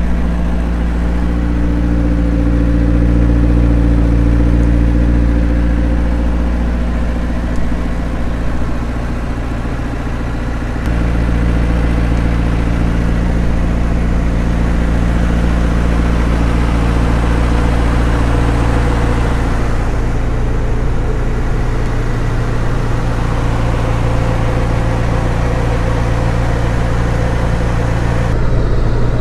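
McLaren 765LT's twin-turbocharged 4.0-litre V8 idling steadily, a loud, deep, even hum whose tone shifts slightly about eleven seconds in.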